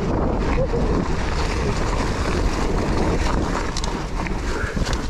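Wind buffeting an action camera's microphone: a steady low rumbling noise, with a few light clicks.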